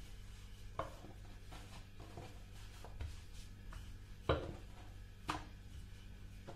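Rolling pin rolling out yeast dough into flatbreads on a floured countertop, with several sharp knocks of the pin against the counter; the loudest comes a little past four seconds in.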